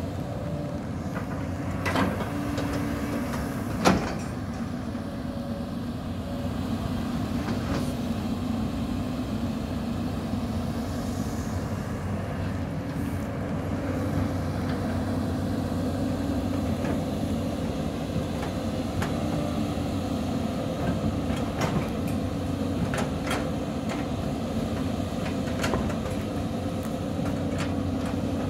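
Caterpillar 320D L long-arm excavator's diesel engine running steadily while the machine digs and swings its bucket. Occasional sharp knocks and clanks sound over it, the loudest about four seconds in and a cluster of them late on.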